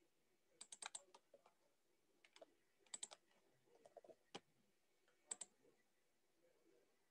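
Computer keyboard keys being pressed in short, quiet bursts of a few quick clicks each, spaced a second or so apart, fading out about two-thirds of the way through.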